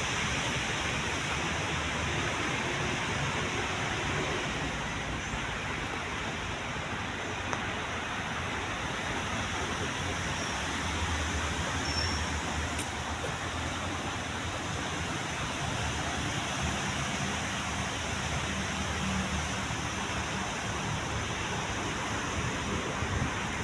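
Steady city background noise: distant traffic with a low, shifting rumble under an even hiss.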